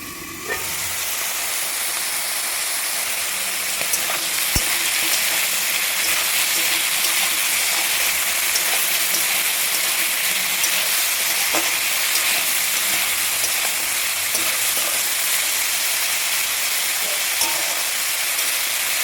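Food sizzling in hot oil in a cooking pan as it is stirred. The sizzle swells just after the start and holds steady, with a few light knocks.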